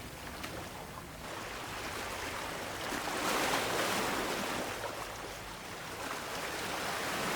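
Ocean waves washing in as a steady rushing noise. It swells to a peak about three seconds in, eases off, then builds again near the end as the next wave comes in.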